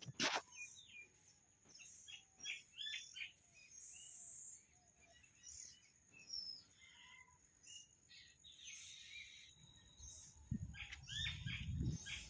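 Several birds chirping and calling in short, varied, high notes, with a sharp click at the very start and a low rumbling noise near the end.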